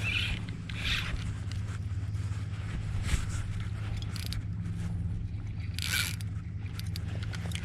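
A steady low mechanical hum runs throughout, with a few short scraping rustles: at the start, about a second in, and near six seconds.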